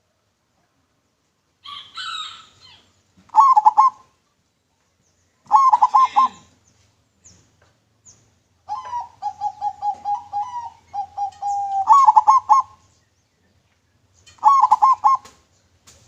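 Zebra dove (perkutut) cooing: bursts of quick staccato coos, four times, one of them a long rolling series, with a shorter rougher call just before the first burst.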